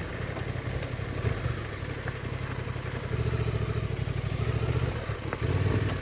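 Honda Transalp adventure motorcycle's engine running at low trail speed, with the throttle opened up about three seconds in, eased briefly, and opened again near the end.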